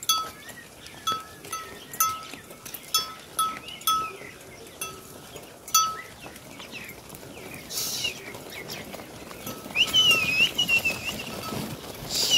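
A metal livestock bell clanking in an uneven rhythm, about twice a second, for roughly the first six seconds. Later come a few short hissing bursts and a high wavering call.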